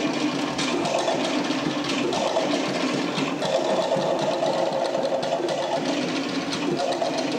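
Tahitian drum ensemble playing a fast, driving ʻōteʻa rhythm: wooden toere slit drums beaten in a rapid, unbroken clatter with pitched drum tones underneath.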